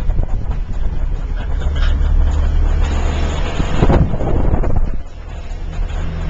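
Car engine running as the vehicle drives along, with a steady low rumble and a louder clattering jolt about four seconds in; the level drops briefly just after.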